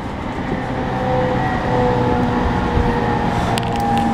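E231 series commuter electric train running, heard from on board: a steady rumble of wheels on rail with faint whining tones from its traction equipment, and a few light clicks near the end.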